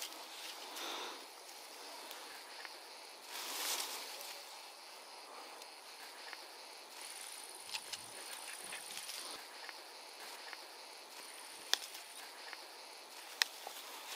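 Dry grass and leaves rustling as stinging nettle tips are picked by a gloved hand, with a louder rustle about three and a half seconds in. A high insect trill comes and goes twice, and two sharp clicks of pruning clippers snipping come near the end.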